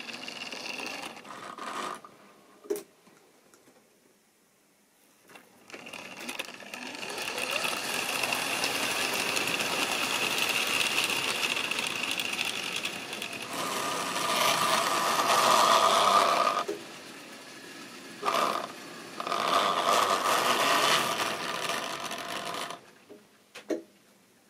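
Model railway train running on the track: a small electric motor's steady whine with the rattle of wheels on rail. It builds up a few seconds in and is loudest as the tank wagons pass close by. It stops briefly once and dies away near the end, with a couple of sharp clicks.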